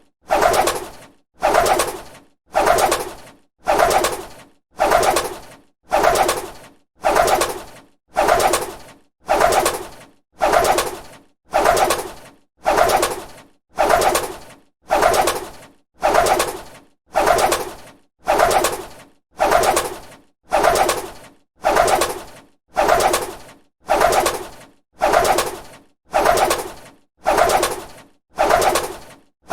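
A bird's wings flapping: a short flurry of rapid wingbeats that starts loud and fades, repeated about once a second in a steady loop.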